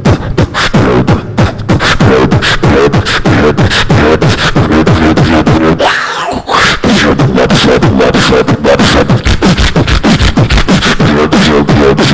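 Beatboxing into a handheld microphone: a fast run of percussive mouth sounds over deep bass tones that drop in pitch. About halfway through the beat breaks briefly for a swooping, rushing sound, then picks up again.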